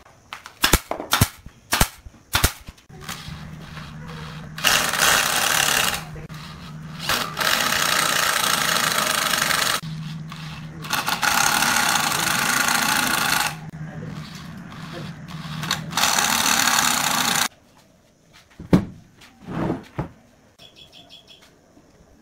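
A nail gun firing several quick shots into pine boards, then a cordless drill driving screws through a board into the posts in four or five runs of a few seconds each. A few knocks follow near the end.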